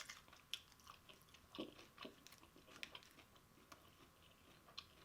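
Faint close-up chewing of fried chicken wings: scattered short crunches and wet mouth clicks at an irregular pace.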